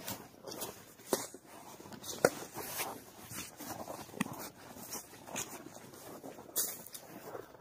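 Footsteps crunching through snow, in uneven steps about one every half second to a second, with small crackles between them.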